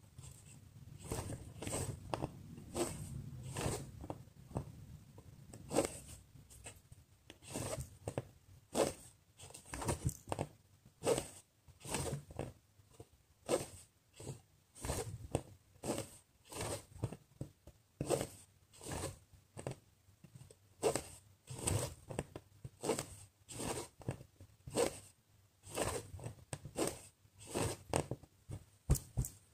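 Needle and embroidery thread being pulled through cross-stitch fabric, stitch after stitch: a run of short swishes, about one or two a second.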